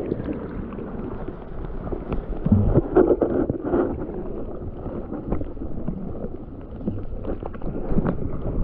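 Muffled underwater sound from a camera held just under a shallow creek's surface: a dull rushing of water, with frequent small knocks and clicks as the camera is moved around.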